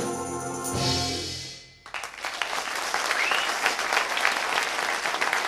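Percussion ensemble's final chord rings out and fades away. About two seconds in, audience applause starts suddenly and carries on steadily.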